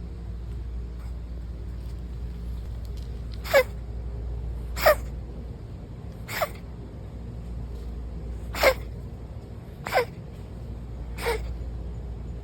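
A cat letting out a run of six short, sharp sneezes or coughs, starting about three and a half seconds in and coming one to two seconds apart. The owner could not tell whether they were sneezes or coughs.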